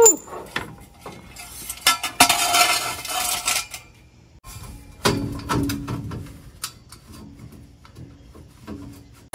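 Metal parts and tools clinking and clattering: a run of irregular knocks and rattles, with louder scraping stretches about two seconds in and again about five seconds in.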